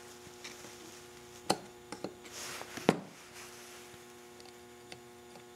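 A few short metal clicks of a small hand tool against the carburetor as the float pin is pushed out of its pivot, over a steady faint electrical hum.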